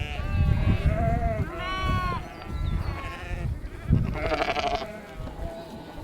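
A flock of sheep bleating, several calls of different pitches overlapping one another, with a single thump about four seconds in.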